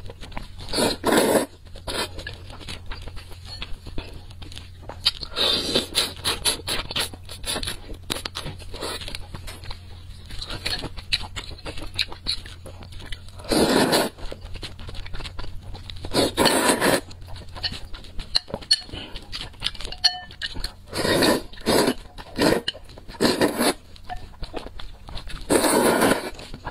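Saucy noodles being slurped in loud surges of about a second each, several times over, between wet chewing and mouth clicks. Near the end there is a longer slurp of sauce from the bowl's rim.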